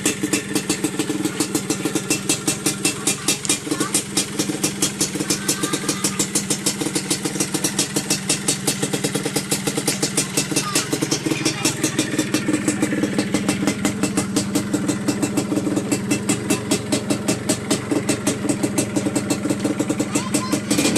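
Yamaha DT125's two-stroke single-cylinder engine idling steadily, a regular pulsing exhaust beat that holds the same pitch throughout.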